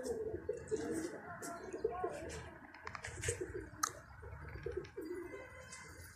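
Domestic pigeons cooing, a run of short rising-and-falling coos repeated one after another, strongest in the first couple of seconds.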